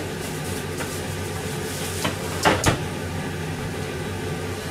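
Food simmering and sizzling steadily in pans on a gas stove over a low hum, with two short sharp noises about two seconds in.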